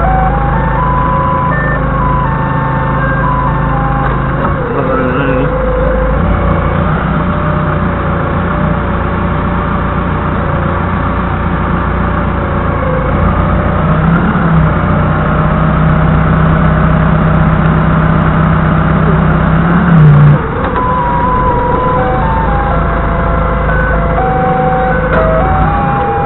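Doosan 4.5-ton forklift's engine running while it carries a farm implement on its forks, with a tinny electronic tune playing over it. Midway a steadier, stronger hum holds for about six seconds and ends in a brief loud burst.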